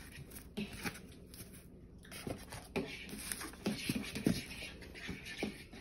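Rustling cloth and soft knocks as tortillas are wrapped in a cloth and the lid is set on a woven palm tortilla basket (tortillero). A few light handling noises at first, then busier rustling and tapping from about two seconds in.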